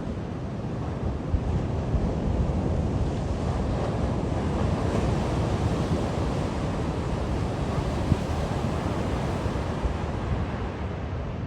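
Ocean surf washing onto a beach, with wind buffeting the microphone; the sound swells a little in the middle.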